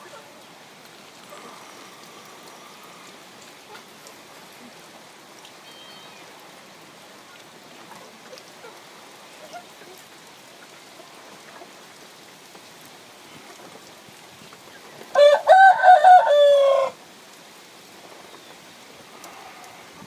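A rooster crowing once, about three-quarters of the way through: a single crow of under two seconds, over a steady hiss.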